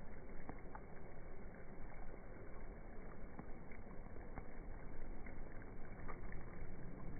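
Low, steady outdoor background rumble with a few faint light ticks; no distinct event.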